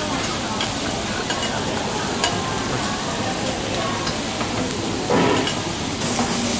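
Shrimp and chicken sizzling on a teppanyaki steel griddle while two metal spatulas scrape and clack against the hot plate, chopping and turning the pieces. There are sharp spatula clicks throughout and a brief louder scrape about five seconds in.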